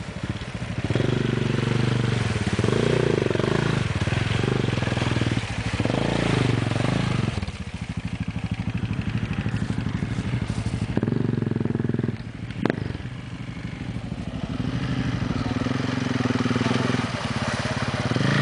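Enduro dirt bike engines revving up and down as the bikes push through deep mud, the engine note rising and falling with the throttle. A single sharp knock comes about two-thirds of the way through.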